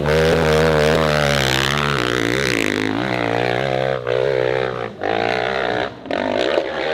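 Dirt bike engine revving hard under load on a steep hill climb, its pitch wavering up and down, with brief drops in revs about four, five and six seconds in.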